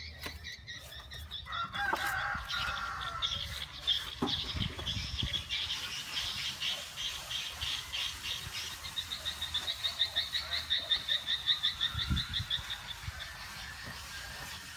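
A high, rapidly pulsed animal call: trains of quick, evenly spaced notes, loudest and most regular a little past the middle, with a couple of dull low knocks underneath.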